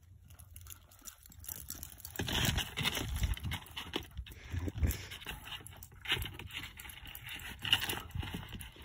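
Dogs playing and scuffling: irregular scrabbling, rustling and knocking sounds.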